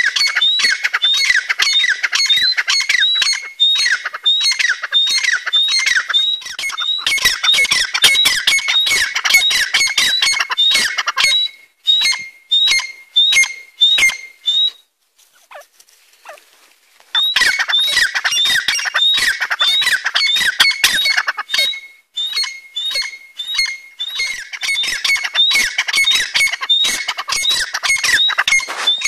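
A pair of grey francolins calling loudly: rapid, repeated shrill notes in a dense run. The calling stops for about two seconds midway, then resumes.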